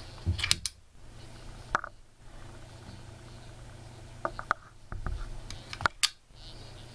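A small magnet on a homemade crystal radio's wooden front panel being moved by hand between the brass-tack station contacts of the tuning selector: groups of sharp clicks and taps as it snaps off and on, four times in all. A faint steady low hum runs underneath.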